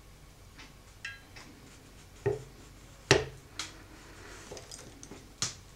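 Lever-arm hand riveter setting closed-end blind rivets in an aluminium panel: a handful of sharp metallic clicks and snaps as the tool works, the loudest about three seconds in.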